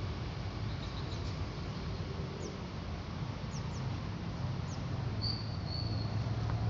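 Small birds chirping, with a handful of short, high, falling calls and one brief whistled note near the end, over a steady low rumble.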